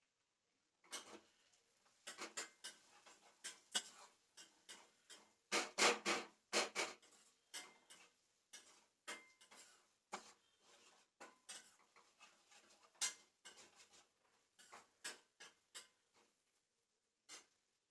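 Kitchen utensils and dishes being handled: irregular light clicks, taps and knocks, with a louder cluster about six seconds in.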